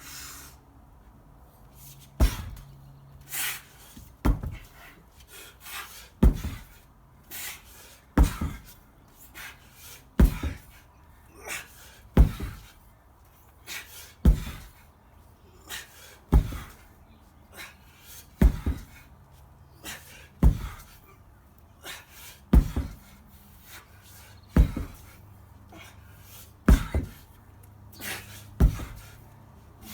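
Heavy breathing and panting in a steady rhythm during repeated swings of a heavy lead-shot-filled sledgehammer mace, with a sharp exhale or thud about every two seconds and a softer breath between.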